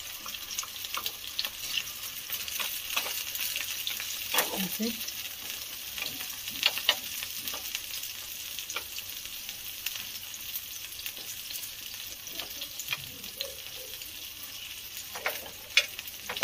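Litti dough balls sizzling steadily in ghee in a hot appe pan, with scattered clicks of a spoon against the pan as they are turned.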